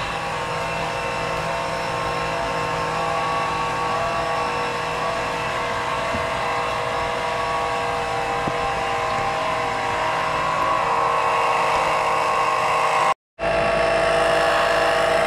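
Electric oil extractor pump running steadily with a constant motor hum and whine while it sucks old engine oil out through the dipstick tube. The sound drops out for a moment near the end, then continues.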